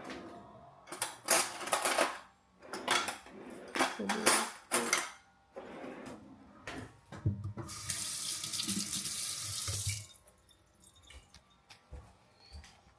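Kitchen tap running into a sink in a steady hiss for about three seconds, then shut off suddenly, after several short noisy bursts of handling in the first half.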